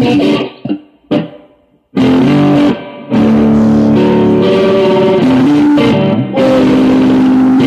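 Electric guitar played live, chords ringing out. It breaks off about a second in, falls nearly silent for a moment, then comes back in with a short dip near the three-second mark.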